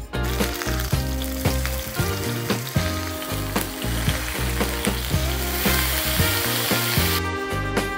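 Steaks searing on a hot black griddle, sizzling. Baijiu poured onto the hot griddle around the meat makes the sizzle swell and foam near the end, then the loud sizzle cuts off sharply about seven seconds in. Background music with a steady beat runs underneath.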